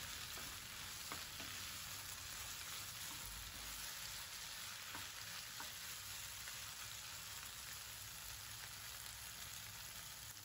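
Okra and prawns frying in a kadai, a faint steady sizzle, with a few light taps of a wooden spatula stirring them.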